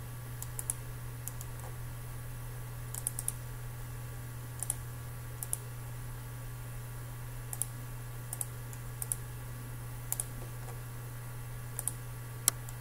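Computer mouse clicking: short sharp clicks, single and in quick pairs at irregular intervals, the loudest near the end, over a steady low hum.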